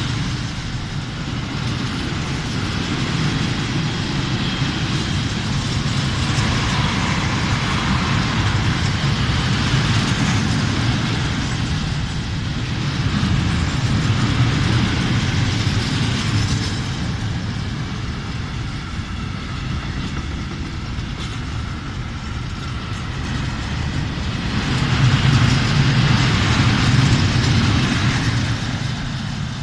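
Freight train of open coal wagons rolling past without stopping: a steady rumble of steel wheels on the rails that swells and eases as the wagons go by, loudest near the end.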